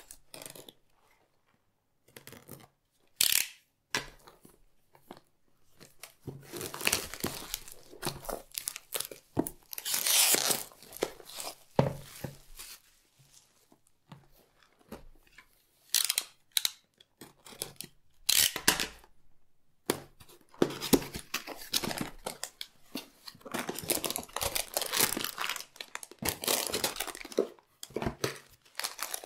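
A cardboard box being cut open and unpacked, then clear plastic bags packed with small plastic building bricks crinkling and rustling as they are handled. The sounds come in irregular bursts with sharp clicks, starting about two seconds in and thickening into steady rustling near the end.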